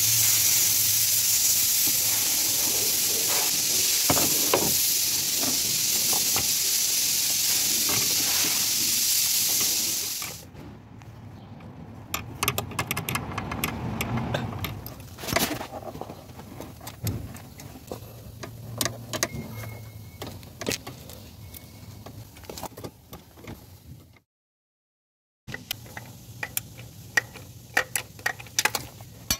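A loud, steady spraying hiss, like compressed air or an aerosol cleaner blown over the engine, lasts about ten seconds and cuts off abruptly. After it come scattered clinks, clicks and rattles of hand tools and metal parts around the diesel supply pump, with a brief dead dropout near the end.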